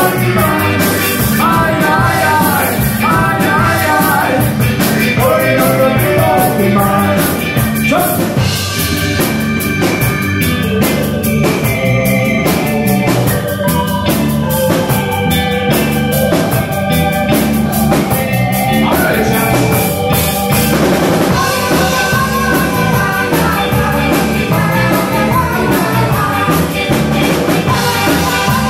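Live ska band playing loud, with drum kit, electric guitar and a singer. The singing pauses for a stretch in the middle while the band plays on, then comes back near the end.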